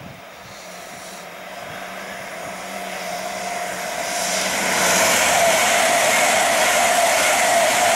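Two coupled Class 805 Hitachi bi-mode trains approaching at speed and passing close by. A rising rush of wheels and air grows loud about five seconds in and then holds steady, with a steady whine running through it.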